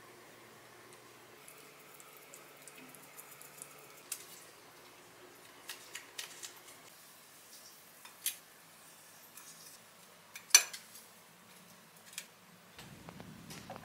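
Light clicks and clinks of dishes, a metal wire basket and food skewers being handled on a kitchen counter, with one sharper clack about ten and a half seconds in.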